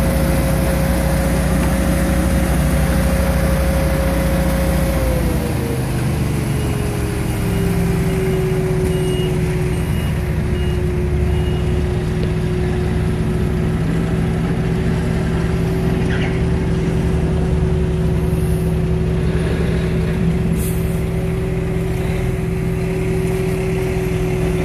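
Large engine running steadily with a whine. About five seconds in the engine slows and the whine slides down in pitch, then holds at the lower speed.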